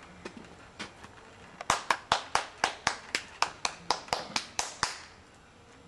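Hands clapping: a few scattered claps, then an even run of about fifteen claps, roughly four a second, stopping about five seconds in.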